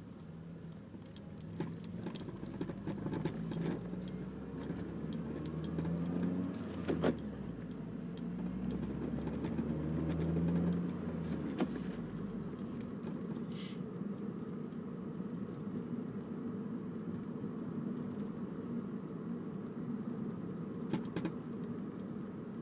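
2006 Honda Civic EX's four-cylinder engine running through a Megan Racing cat-back exhaust, its deep drone swelling and wavering over the first half, then settling steady. Scattered sharp clicks and ticks sound over it, with a louder one about seven seconds in; the owner cannot tell what the noise is.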